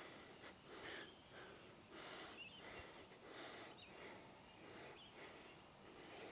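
A man breathing from exertion during leg exercise, a faint run of short breaths about once a second.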